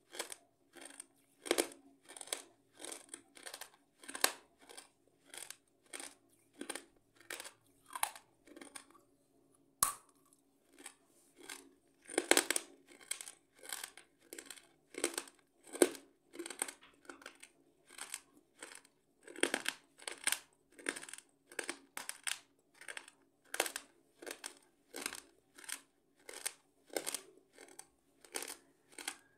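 Crisp crunching sounds close to the microphone, about one and a half a second in a steady rhythm, with a short pause about eight seconds in that ends in a single sharp click. A faint steady hum lies underneath.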